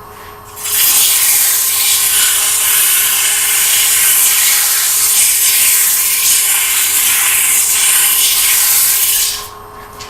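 60-grit sandpaper pressed against a wooden workpiece spinning slowly on a wood lathe: a loud, steady rasping hiss that starts about half a second in and stops near the end, with the lathe's steady motor hum underneath.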